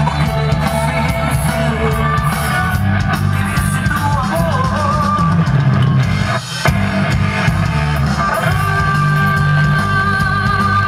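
Loud dance music with a heavy bass line, drums and a melody played over a sonidero sound system. It briefly drops out about two-thirds of the way through.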